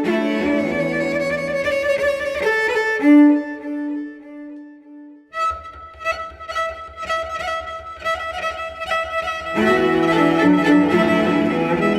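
Background music with violin and other bowed strings; it thins to a single held note about three seconds in, drops out briefly, then returns with a steady low pulse and fuller strings near the end.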